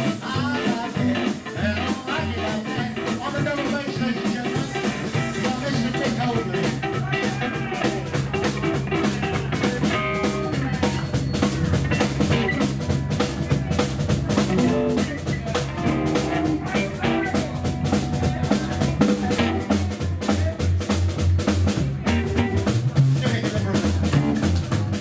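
Live rockabilly blues band playing: upright double bass picking out even bass notes, hollow-body electric guitar and a drum kit keeping a steady beat, in a mostly instrumental stretch.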